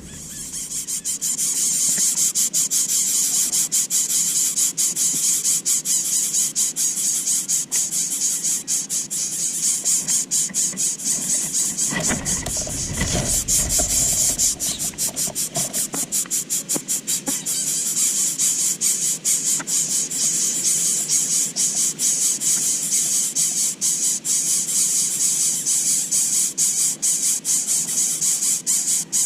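Greater coucal nestlings begging: a loud, continuous high-pitched squealing with a fast pulsing flutter, the chicks calling for food. A brief rustling sound cuts in about halfway through.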